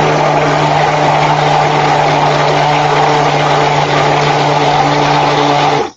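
Handheld stick blender running steadily at one speed, mixing a colored portion of soap batter, then switched off abruptly just before the end.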